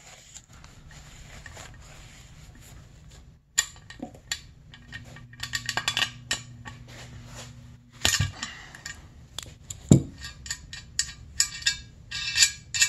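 Steel hand tools and hardware clinking and clicking as a socket wrench and nuts are worked on engine cylinder studs. It is quiet for the first few seconds, then come scattered light metal clicks, a sharper knock about ten seconds in, and a quick run of clinks near the end.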